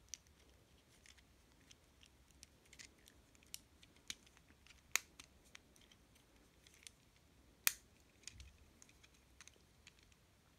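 Small plastic clicks and faint handling as a Transformers G1 Outback minicar toy's parts are folded and snapped into vehicle mode, with two sharper snaps, one near the middle and one a few seconds later.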